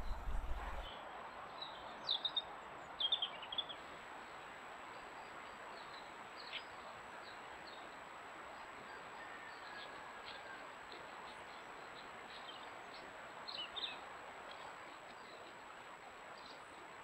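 Woodland ambience recorded by a trail camera: a steady faint hiss with scattered short bird chirps and calls, a small flurry of them a couple of seconds in and again about three-quarters of the way through.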